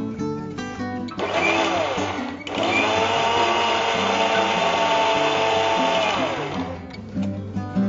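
Electric mixer grinder with a steel jar, grinding soaked lentils and poha into a coarse batter in pulses. A short burst comes about a second in, then a longer run of about four seconds. The motor's whine rises as it spins up and falls away as it stops, near the end.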